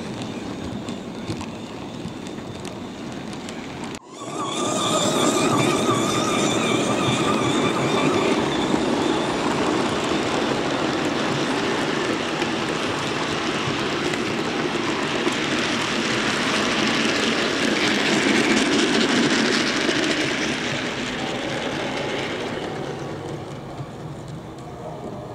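OO-gauge model goods train running on the track: a steady rumble and rattle of wagons on the rails, with a high whine for a few seconds after it swells up, fading away near the end as the train goes off into the tunnel.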